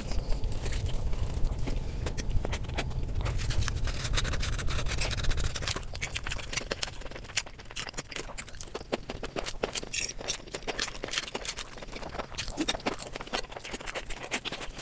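Close-miked ASMR eating sounds: a rapid, uneven run of sharp clicks, crunches and scrapes from chewing and handling food. A low rumble underneath fades out about six seconds in.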